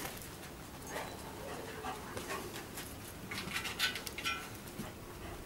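Explosives-detection dog panting and moving about during a search, with scattered light clicks and scuffs, busiest about three and a half seconds in.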